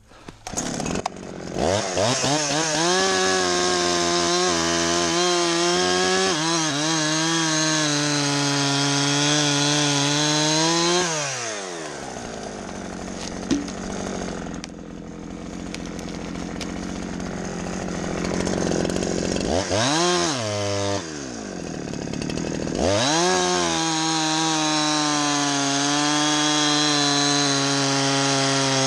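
Chainsaw revving up to full throttle and cutting wood for about nine seconds, then dropping back to idle. After a short blip of the throttle, it goes back to full throttle for another cut near the end.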